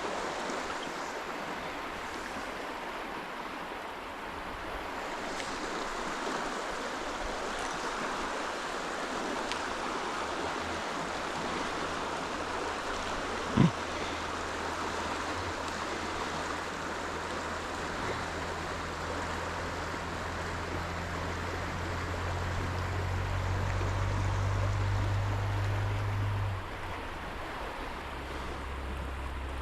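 Stream water running steadily. A single sharp knock comes about halfway through. In the second half a low steady hum comes in, grows louder, then drops off suddenly near the end.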